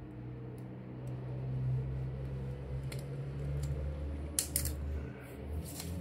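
RJ45 crimping tool's blade cutting through Cat6 network cable: a few sharp clicks and snaps in the second half, over a low steady hum.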